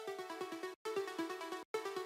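Background music: an upbeat electronic track with quick, evenly repeated synth notes that cut out briefly twice.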